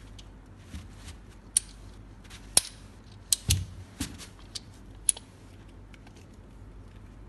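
Compact table-top tripod being folded by hand: about seven sharp clicks and knocks as its leg hinges snap and the legs knock together, with one duller thump just after the middle.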